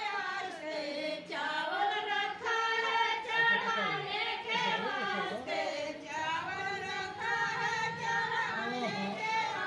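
Several voices, mostly women's, singing together without instruments.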